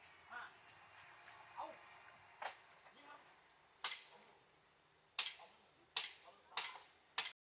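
A high-pitched insect chirping in quick, regular pulses, typical of a cricket. Several sharp clicks cut in during the second half.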